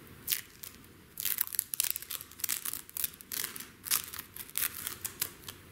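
Tape being peeled off the freshly cut end of a nylon braided hose with stainless strands in it: a quick, irregular run of crackles, starting about a second in.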